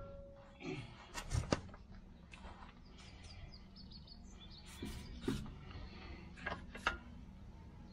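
Scattered sharp metal clinks and knocks of hand tools and parts against the flywheel and clutch assembly, over a steady low hum.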